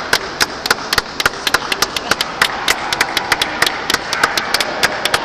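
Rapid, irregular sharp knocks, several a second, over a steady hall background.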